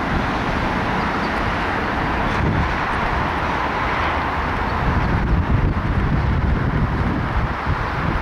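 Class 395 high-speed electric multiple unit pulling out of the platform, a steady rumble and rush of its running with no distinct tones, mixed with uneven low buffeting from wind on the microphone.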